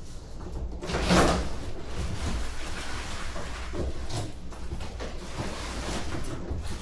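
Cardboard shipping box scraping and rustling as it is lifted and slid up off a boxed roller tool cabinet, with a louder scrape about a second in.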